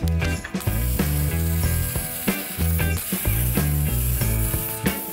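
Background music with a bass line, over the steady hiss of an abrasive cutoff wheel cutting through the sheet steel of a car's old rocker panel area, starting about half a second in.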